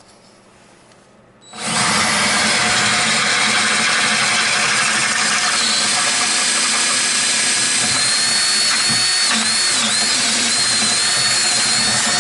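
Power drill starting abruptly about a second and a half in and running steadily, enlarging a hole in a snowmobile running board to fit a mounting sleeve. A thin high whine joins about halfway through and dips briefly twice.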